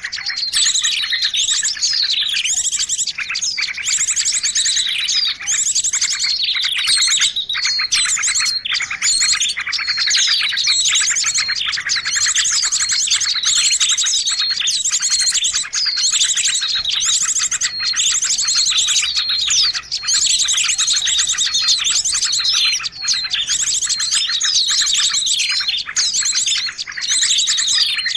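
Many small songbirds chirping and trilling at once in a dense, unbroken chorus of rapid high trills: a bird-luring call track meant to draw small birds in.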